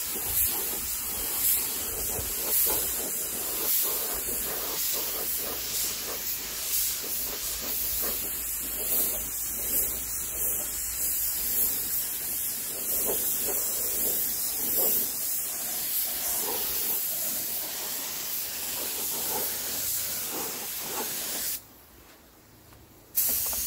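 Gravity-feed spray gun hissing as compressed air atomises red paint, surging about once a second. The hiss cuts out near the end for a second or two, then starts again.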